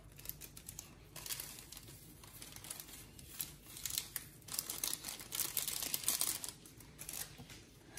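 Small plastic seasoning packets rustling and crinkling in short irregular bursts as seaweed flakes and sesame seeds are shaken out of them.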